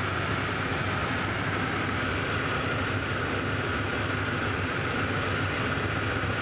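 Steady drone of a crop-spraying airplane in flight: engine and propeller with rushing air, holding even with no change in pitch.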